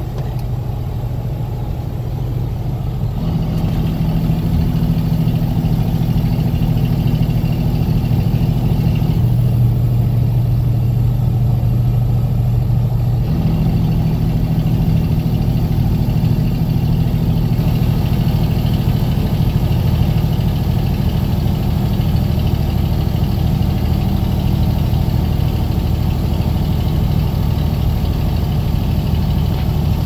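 Steady drone of a truck engine and road noise heard inside the cab while cruising on the highway. It gets a little louder over the first few seconds, and the engine note shifts slightly a few times after that.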